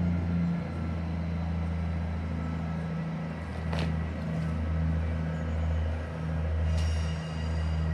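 Large diesel engine idling with a steady low hum that swells and fades gently. A short hiss of air comes about four seconds in.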